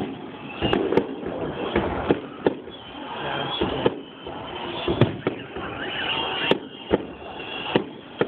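Aerial fireworks shells bursting: sharp bangs at irregular intervals, about a dozen in eight seconds, over a steady background din.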